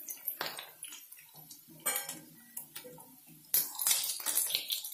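Steel slotted skimmer and wooden spatula scraping and clinking against a nonstick kadhai as fried baby potatoes are scooped out of shallow oil, over a faint sizzle. There are scattered clinks, one about two seconds in, and a busier run of scrapes in the last second and a half.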